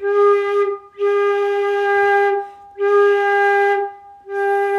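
Silver concert flute sounding the same mid-range note four times, each held about a second with short breaks between. It is an unfocused, hollow tone blown with the lips more open, which the player likens to a horn.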